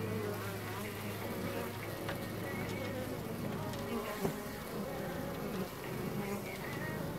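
Honeybees buzzing at a busy hive entrance, single bees flying close past with their buzz gliding up and down in pitch. A short tap about four seconds in.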